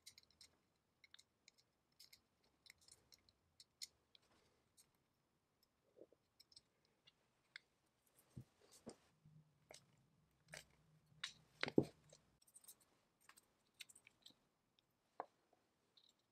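Faint, scattered clicks and light taps of small parts being handled, with a denser run of louder knocks about eleven to twelve seconds in.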